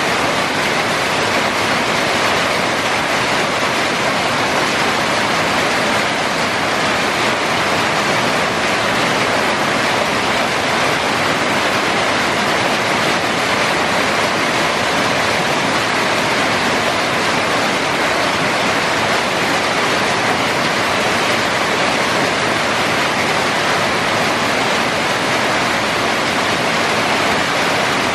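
Heavy rain pouring down on a flooded street: a loud, steady hiss that never lets up.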